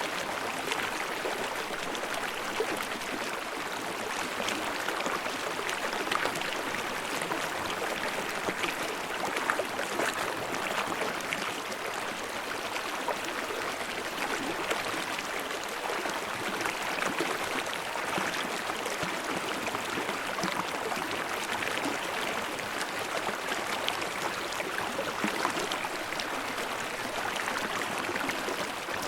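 Flowing stream babbling and splashing: a steady rush of water full of small, quick splashes and gurgles.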